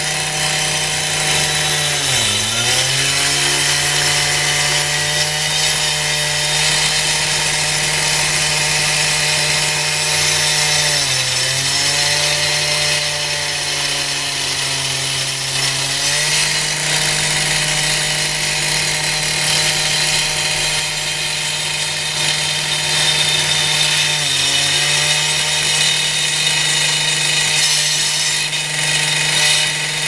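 Husqvarna disc cutter running at full speed with its diamond blade grinding into a concrete slab, a steady motor note under a bright, gritty cutting hiss. Three times the motor pitch drops sharply and climbs back as the blade is loaded in the cut.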